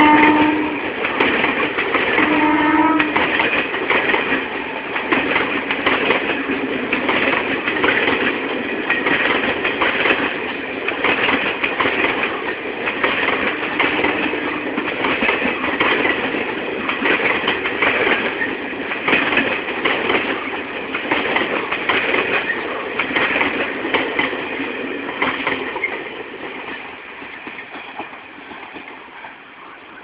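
WAP-4 electric locomotive's horn, the tail of one blast right at the start and a short second blast a few seconds in. Then passenger coaches roll past with a steady clatter of wheels on the rails, which fades over the last few seconds as the end of the train moves away.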